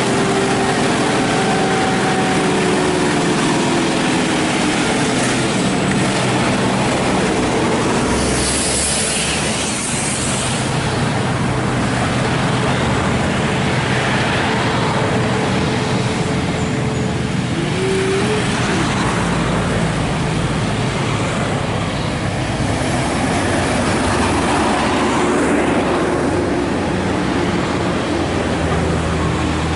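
Heavy trucks and a bus passing one after another on a hill road: diesel engines running steadily, with tyre and traffic noise. A brief hiss about nine seconds in.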